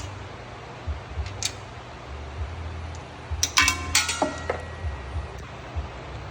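A cluster of sharp metal clinks with a brief ringing about three and a half seconds in, after one faint click: steel hardware knocking against the drum mower's steel frame as it is bolted together.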